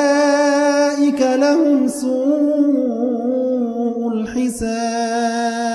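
Arabic Quran recitation: one voice chanting unaccompanied in long, drawn-out melodic notes, the vowels stretched in tajweed style. The pitch stays mostly level, with brief breaks about a second in and just after four seconds.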